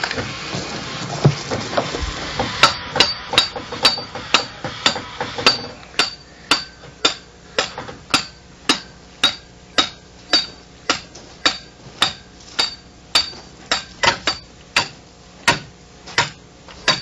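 Hammer driving steel rebar pins into gravel to anchor the foot plate of a turnbuckle brace. The blows are metal on metal, a steady series of about two a second with a short ring on each, starting about two seconds in.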